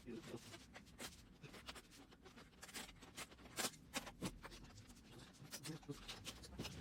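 Faint scattered clicks, taps and scraping: hands working on the parts of an opened LCD TV.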